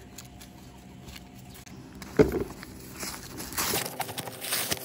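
A thump about two seconds in, then dry rustling and tearing as the green husks are pulled off fresh ears of corn.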